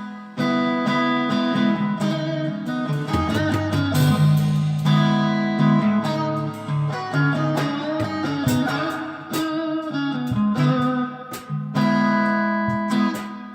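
Guitar playing a song intro in strummed chords, the chord pattern changing every few seconds and coming round again near the end.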